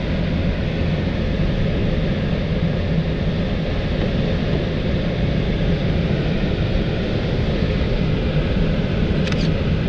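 Steady rushing of air in the cockpit of an L-23 Blaník glider in flight, with a low hum underneath.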